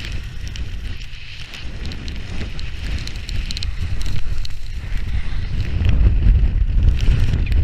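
Storm wind buffeting a GoPro's microphone during a ski descent, a heavy low rumble that strengthens in the second half, over a steady hiss with scattered crackles from the skis on the snow.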